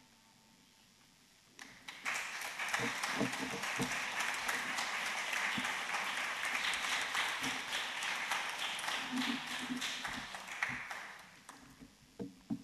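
Audience applauding. The clapping starts about two seconds in, holds steady, and dies away near the end.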